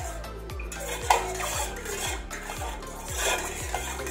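A steel spoon stirring tamarind water in a stainless-steel pot, clinking and scraping against the metal sides as the liquid swirls.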